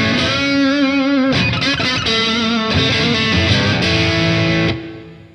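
Electric guitar played through a Demonfx Prince of Sound overdrive pedal, a clone of the Analog Man Prince of Tone, in its distortion mode with a knob turned to maximum. Distorted chords and notes with wavering vibrato, left to ring and fade out near the end.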